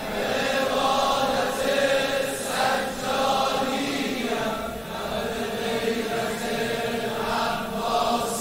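Many male voices chanting the refrain of a Shia devotional anthem together, in long held notes.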